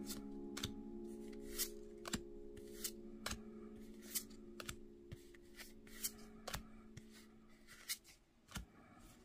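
Trading cards from a freshly opened booster pack being flicked through one at a time, each one a crisp snap, about every half second. Faint background music fades out under them near the end.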